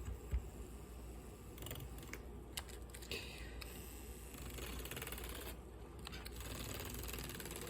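Handheld battery milk frother whirring faintly in a mug as it mixes cocoa powder into the drink, with a few sharp clicks and taps against the mug early on.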